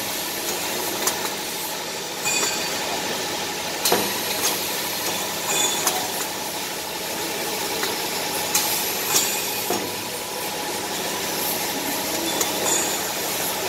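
Automatic maxi-roll paper band saw cutting machine running: a steady mechanical hum and hiss, with irregular sharp clacks and three brief high-pitched sounds spread through it.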